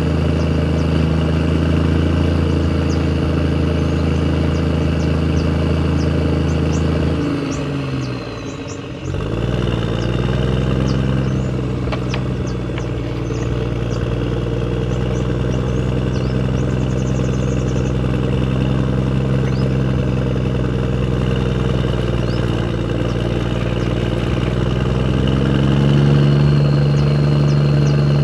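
Engine running steadily. It slows and drops in pitch about eight seconds in, picks up again, and revs higher near the end, with faint light ticking over it.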